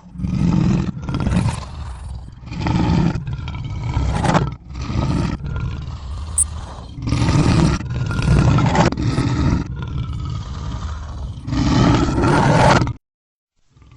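Lion roar sound effect played in reverse: a series of rough roars that swell and break off, cutting off abruptly near the end.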